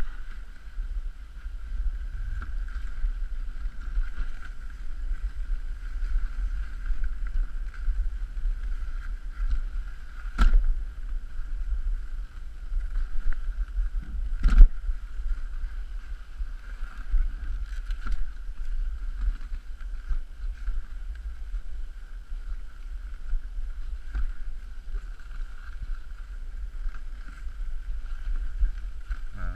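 Dog sled running along a snowy trail, heard from a camera on the sled: a steady low rumble of wind and jolting on the microphone, with a continuous high hiss. Two sharp knocks, about ten and fourteen seconds in, as the sled jolts.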